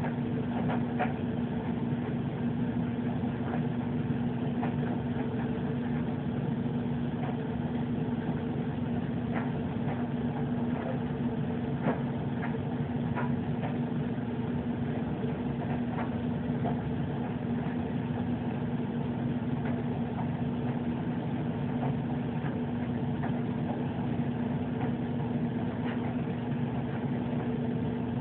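A steady low hum with a constant pitch, with a few faint clicks scattered through it.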